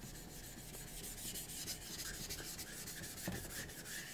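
Stone rubbed against stone: a second whetstone worked back and forth over the wet surface of a Naniwa Aotoshi to raise an abrasive slurry, a faint gritty scrubbing. There is a soft knock about three seconds in.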